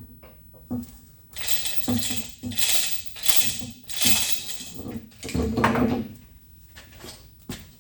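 Hand work on metal machine parts: sharp metallic knocks and clinks, with a run of repeated scraping strokes in the middle.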